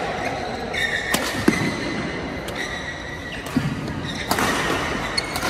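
Badminton doubles rally: rackets striking the shuttlecock in a quick exchange of sharp hits, about six in all, with short squeaks of court shoes on the floor mat.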